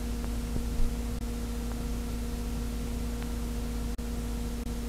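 Steady electrical hum under an even hiss, with a few faint ticks, and no sound from the scene itself: the bare noise floor of the recording.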